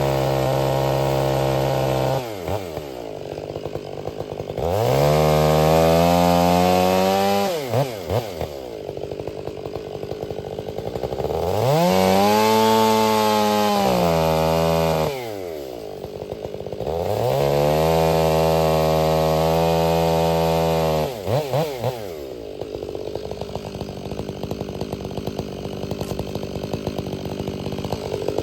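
Two-stroke chainsaw idling, then opened up to full throttle three times for about three seconds each. Each time the pitch rises and then falls back to idle.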